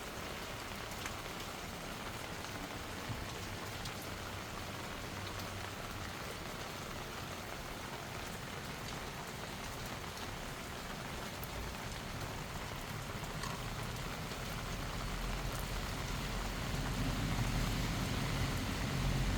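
Steady light rain falling on surfaces, with scattered droplet ticks. A low rumble grows in over the last few seconds.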